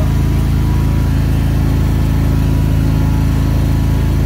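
15 kVA single-phase generator set's engine running steadily, started automatically by the ATS/AMF panel when mains power was cut and now carrying the load.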